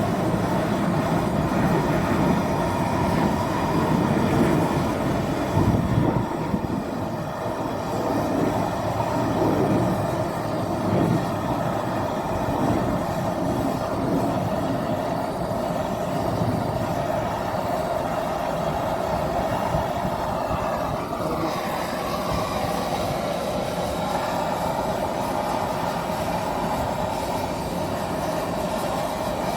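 Steady mechanical running noise with a constant hum, busier and rumbling for the first dozen seconds, then evening out.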